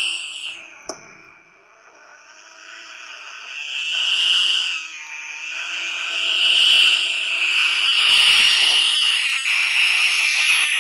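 Desert rain frog (Breviceps macrops) giving its shrill, squeaky defensive call, a squeal like a squeeze toy that it makes when it feels threatened. The squealing drawn out, fading early, then swelling again and staying loud through the second half.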